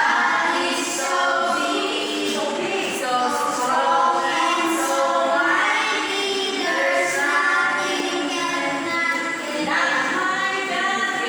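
Loud videoke singing: several voices singing along with music throughout.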